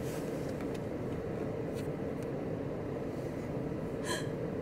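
Steady low rumble of an idling car engine. A brief high squeak cuts through about four seconds in.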